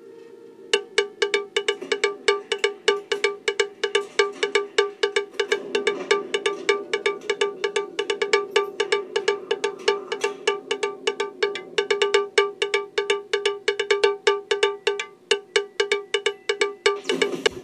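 Background music: a quick, bouncy run of short, bright struck notes, about four or five a second, starting just under a second in.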